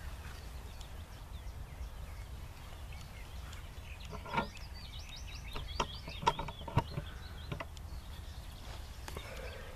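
Wind rumbling on the microphone with small birds chirping, and a handful of sharp knocks and clicks between about four and eight seconds in as the camera is handled up close.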